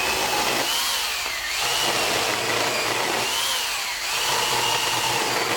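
Sun Joe 10-inch electric pole chainsaw running, its motor whine rising and falling in pitch about every second as the chain cuts into a wooden limb.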